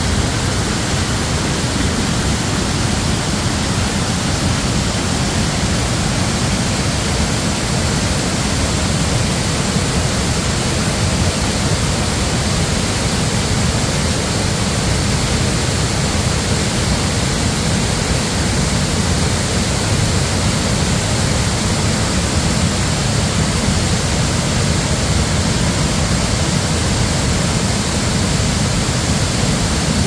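Waterfall rushing into a plunge pool: a steady, loud noise of falling and churning water with a deep low rumble.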